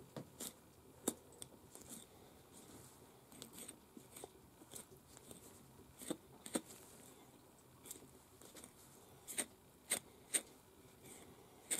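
Small knife cutting and scraping through raw hide at the base of an animal's ear, as the ear is being turned: faint, irregular sharp snicks, a few louder ones in a quick run near the end.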